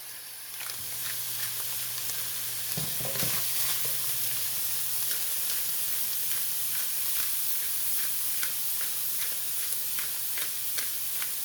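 Ground beef and onions sizzling in a skillet while being stirred, with short scraping ticks of the spoon against the pan.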